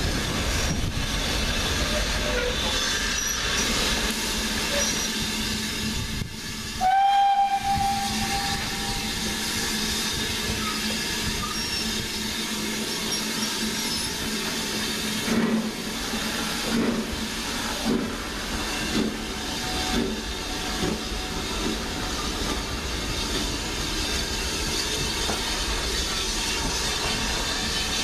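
Steam locomotive departing: one short whistle blast about seven seconds in, then the exhaust beats starting at about one a second as it pulls away, over a steady hiss of steam.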